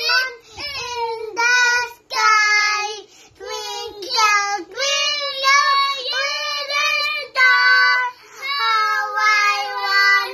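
Young children singing a song in short, held-note phrases with brief breaks between them.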